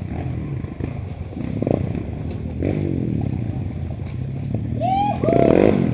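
Dirt-bike engine idling, with a couple of brief swells in engine speed. A short, louder, higher-pitched rising sound comes near the end.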